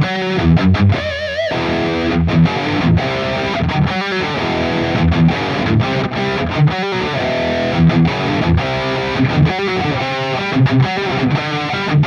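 Strinberg electric guitar played through heavy distortion in a metal riff: short, rhythmic low chugs, with a held note that wavers in pitch about a second in.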